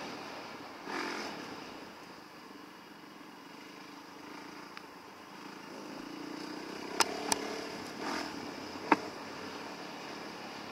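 2019 Yamaha WR450F's single-cylinder four-stroke dirt bike engine running at low, fairly steady revs on a trail, with a couple of brief swells in revs. Three sharp knocks in the second half, the first two close together, are the loudest sounds.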